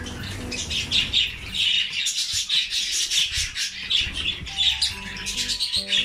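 A flock of budgerigars chirping and chattering over one another, a dense unbroken twitter.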